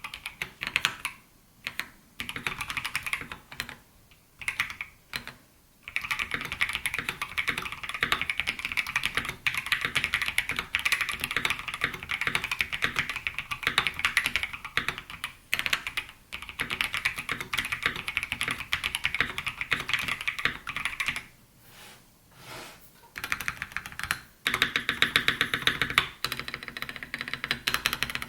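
Typing on a custom mechanical keyboard with lubed and filmed Gateron Box Ink Pink linear switches, MT3 high-profile keycaps and a polycarbonate plate. A few short runs of keystrokes come first, then about fifteen seconds of fast continuous typing, a short pause, and more fast typing near the end.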